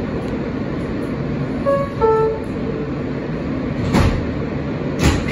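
R160 subway car door chime: two descending tones about two seconds in. The doors then shut with a thud about four seconds in, and a second thud follows a second later, over the steady hum of the train standing at the platform.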